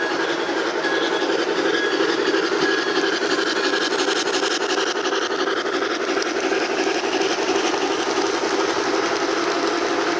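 Model steam train rolling steadily past on the layout track, wheels running and clicking over the rail joints, with a few short high tones near the start.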